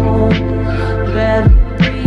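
Background music with a steady beat, deep sustained bass and drum hits.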